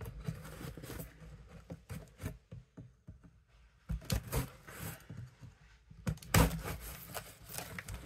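A serrated knife scraping and cutting along the packing-tape seam of a cardboard box, with light knocks of the box being handled; the loudest scraping comes about six seconds in.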